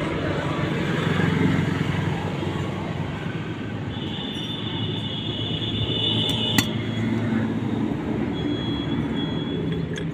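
Passing road traffic rumbling, with a thin high squeal for about two and a half seconds midway, a sharp click just after it, and a shorter squeal near the end.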